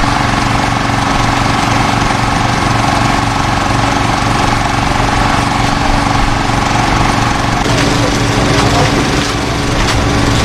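Small petrol engine of a portable hydraulic rescue-tool power unit running steadily. A higher steady whine in the sound stops about three-quarters of the way through.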